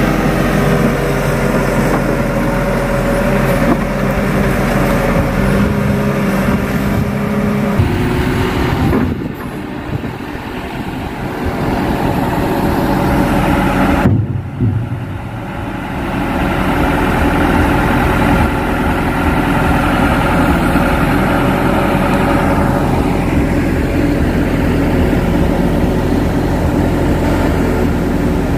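Heavy diesel engine running steadily and loud, first a Kato HD512E crawler excavator working at the barge, then, after a sudden break about 14 seconds in, a steady engine drone as the barge gets under way.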